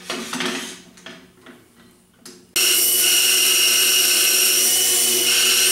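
A few light knocks and rattles as the bandsaw's fence is slid aside, then about two and a half seconds in a Delta bandsaw switches on and runs steadily and loudly with a constant hum and whine.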